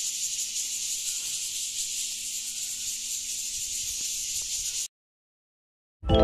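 Steady high-pitched buzzing of cicadas in the garden trees. It cuts off abruptly about five seconds in, and after a second of silence loud music starts at the very end.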